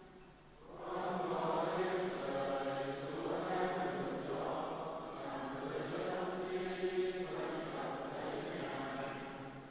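A group of voices chanting a liturgical psalm in long, held phrases. The singing starts about a second in, after a short breath pause, and fades into another pause near the end.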